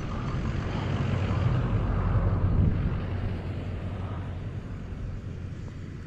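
A vehicle passing on a nearby road: a low rumble that builds to its loudest about two and a half seconds in, then fades away.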